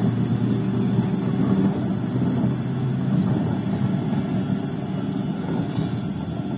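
WAG12B twin-section electric locomotive moving off along the track: a steady low hum and rumbling of the running locomotive, slowly fading toward the end as it draws away.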